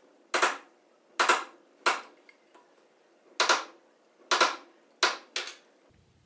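A hammer striking a steel nail set to sink nails below the surface of a pine butt joint: seven sharp taps, three, then a pause of about a second and a half, then four, the last two close together.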